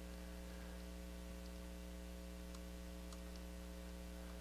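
Steady low electrical mains hum, with a few faint ticks.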